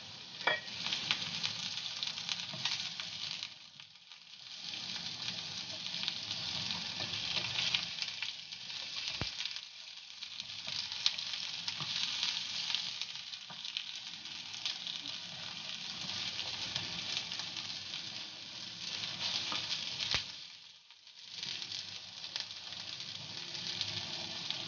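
Sliced onion, garlic and ginger sizzling in hot oil in a nonstick frying pan as a slotted spatula turns them, with a couple of sharp knocks. The sizzle dips briefly about four seconds in and again about twenty-one seconds in.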